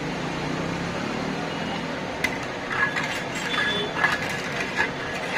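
Long metal ladle working a large metal pot of chai: tea poured back in a stream, then a run of sharp metallic clinks and knocks with a brief ringing tone from about two seconds in, over a steady hiss.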